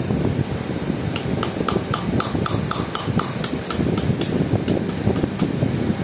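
Hand hammer tapping on a steel rod held in locking pliers: a quick, even run of light metallic strikes, about four a second, each with a short ring. The taps start about a second in and stop shortly before the end, over a steady low rumble.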